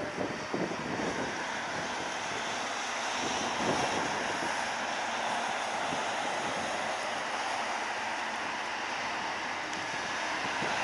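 Jet airliner engines rushing steadily as the twin-engine Boeing 787 rolls down the runway, a little louder near the end, with some wind on the microphone.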